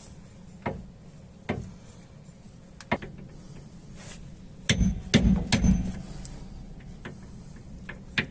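Metal knocking and clinking: a few light clicks, then about five seconds in a quick run of loud metal-on-metal knocks with a ringing tone.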